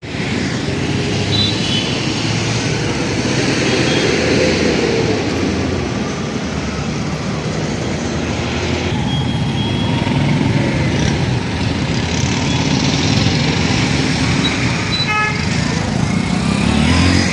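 Town street traffic: cars, scooters and motorbikes driving past with their engines running, and a few short horn toots. An engine rises in pitch about four seconds in and again near the end.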